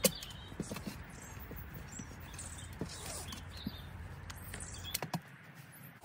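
Digging compost out of a wooden compost bin by hand and tool: scattered light knocks, scrapes and rustling of compost and debris over a steady outdoor background.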